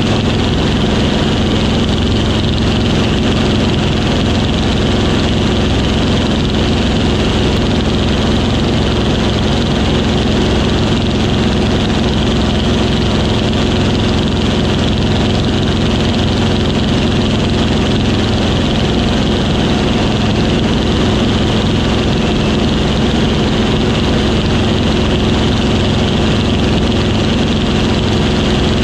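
Yak-3 fighter's piston engine droning steadily in flight, heard from inside the cockpit, with no change in pitch or power.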